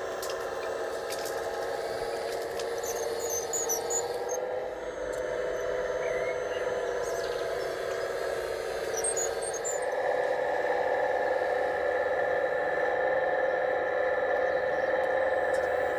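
Steady high-pitched whine of an RC model road-rail excavator's electric motor and hydraulic pump running, getting a little louder about ten seconds in.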